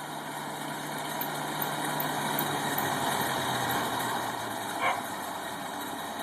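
Four-cylinder Waukesha gas engine of a 1940s Longyear core drill rig running steadily. It grows a little louder, then eases back about four seconds in, with one short sharp sound just before the end.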